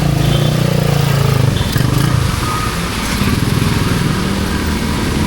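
A small motorcycle engine running close by, loudest in the first second and a half, over the steady hiss of heavy rain on the street.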